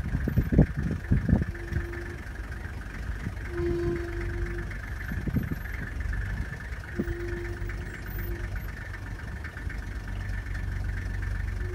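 Steady low rumble of an idling vehicle engine, with a few low thumps in the first second and a half.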